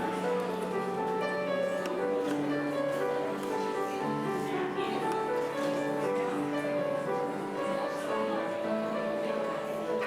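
Wedding ceremony music played on a keyboard instrument: slow, long-held chords and notes that change every second or two.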